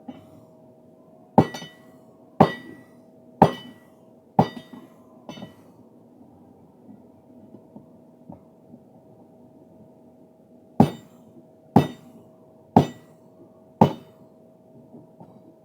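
Hammer blows on steel being forged into a crowbar: two sets of four sharp, ringing strikes about a second apart, a few lighter knocks between them, over a steady hum.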